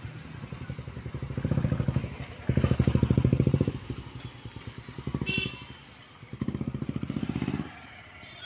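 Motorcycles and other road vehicles passing close by one after another, the motorcycle engines' rapid exhaust pulses swelling and fading as each goes past, four passes in all. A brief high beep about five seconds in.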